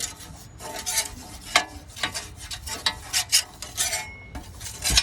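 Olive oil being spread over a hot griddle: a run of short scraping strokes across the cooking surface.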